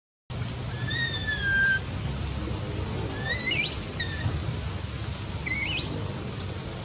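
Three high, thin, whistle-like animal calls: a falling call about a second in, then two quick upward-sweeping calls, one mid-way and one near the end. A steady low rumble runs underneath.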